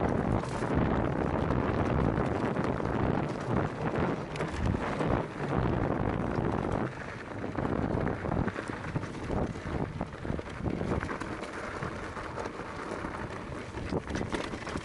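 Wind buffeting the microphone while mountain bike tyres rumble over a rocky dirt trail, with irregular knocks and rattles from the bike over bumps.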